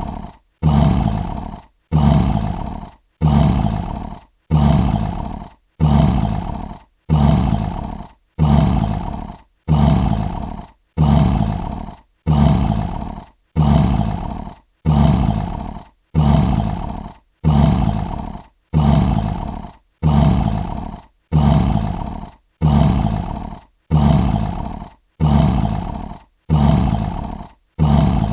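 Lion roar sound effect: the same short roar repeated at even spacing, about once a second, each one starting loud and fading off before a silent gap.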